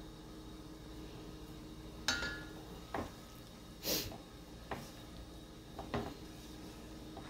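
Silicone spatula knocking and scraping against a stainless steel mixing bowl as flour is worked into soft bread dough: about five short knocks roughly a second apart, a couple with a brief metallic ring.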